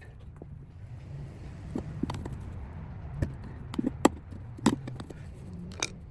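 Tire spoons clicking and knocking against a mini bike wheel rim as a tire is levered on by hand: a string of irregular sharp clicks and knocks, the loudest about four seconds in.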